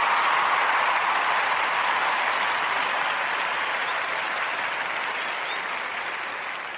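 Audience applause, a thick steady clapping that slowly fades away toward the end.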